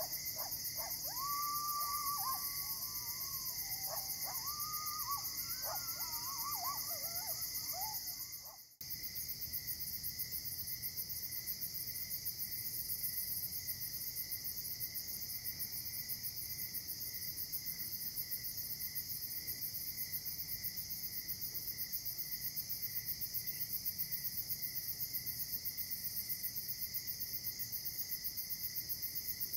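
Crickets and other night insects trilling in a steady, fast-pulsing chorus. For the first eight seconds or so, distant wavering, gliding calls rise and fall over it. About nine seconds in the sound dips out briefly, then the insect chorus carries on alone.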